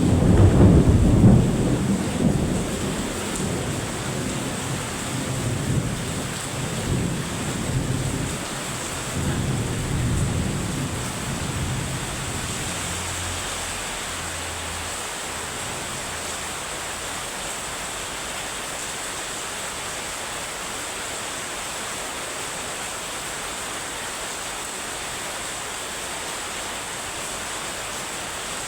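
Heavy rain falling steadily, with a long rumble of thunder that is loudest at the start and dies away over about twelve seconds, leaving the even hiss of the rain.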